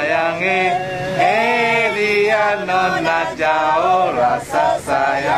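Two men singing a song together, one into a handheld microphone, with long held notes that rise and fall.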